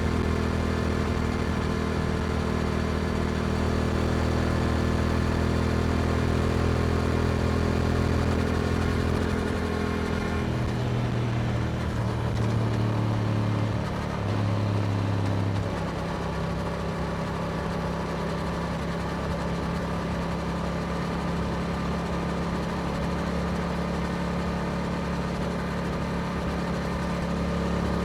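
Yamaha R7's parallel-twin engine through an Akrapovic exhaust, running steadily while riding. About ten seconds in, the engine note shifts in a few steps over several seconds, then settles into a lower, slightly quieter steady note.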